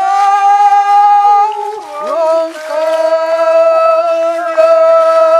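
Rongmei men's forest folk song: a loud, long held high note, a short slide near two seconds in, then another long steady note.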